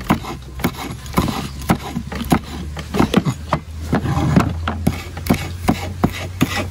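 A large kitchen knife chopping small red chili peppers on a wooden chopping board: a quick, even run of sharp taps on the wood, about three a second.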